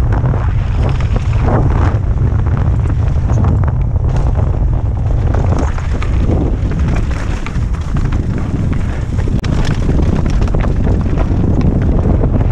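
Wind buffeting the microphone of a helmet-mounted camera on a fast mountain-bike descent: a steady loud rumble, with tyres crunching and clattering over a dirt trail strewn with loose stones.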